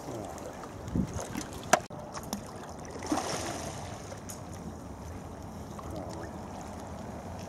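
Wind on the microphone and sea water lapping, with a sharp click just under two seconds in and a brief rush of noise about three seconds in.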